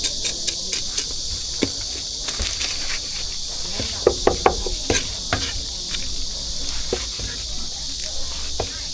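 Steady high chirring of an insect chorus, like crickets. Over it come sharp rhythmic knocks at about four a second that stop about a second in, followed by scattered clicks and knocks.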